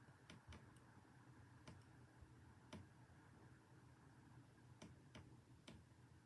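Faint, irregular clicks of a lock pick working the pin stacks of a brass Ruko padlock with spool pins, about seven small ticks spread over six seconds.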